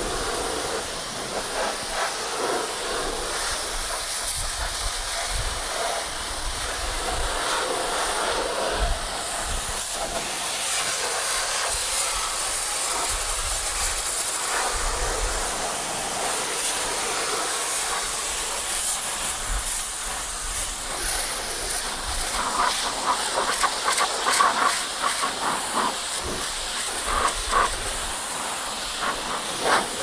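High-pressure water jet from a pressure-washer lance hitting a truck's wheel and underbody: a steady hissing spray, with rougher spattering over roughly the last third.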